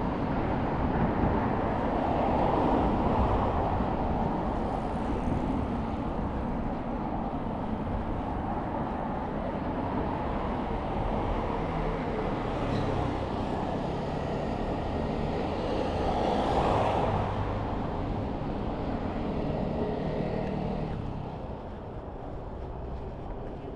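City road traffic passing close by: a steady hum of vehicles, with two louder pass-bys a few seconds in and about two-thirds of the way through, easing off near the end.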